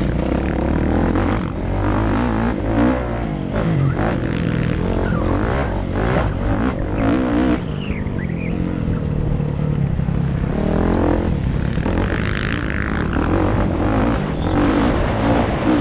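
Kawasaki KX450F single-cylinder four-stroke motocross bike engine being ridden hard, its revs rising and falling again and again through the corners, heard from the rider's helmet camera with a steady low rumble.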